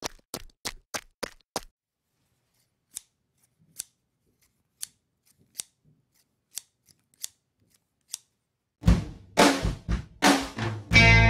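A run of sharp clicks, about three a second at first, then thinning to scattered single clicks. Near the end a few heavy drum hits of a logo intro sting start, leading into music.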